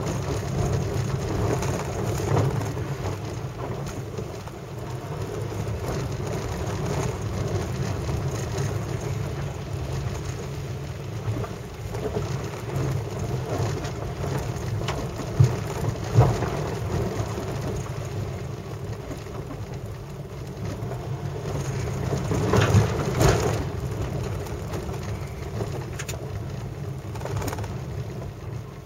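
Car driving slowly on a wet, gravel- and leaf-strewn road, heard from inside the cabin: steady engine and tyre noise with tyres crackling and splashing over wet debris. There are a couple of sharp knocks about halfway through and a louder bumpy stretch about three-quarters of the way in.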